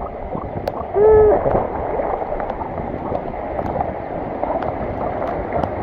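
Steady rushing noise of storm wind and rain. About a second in there is a single short, low, rising-and-falling call.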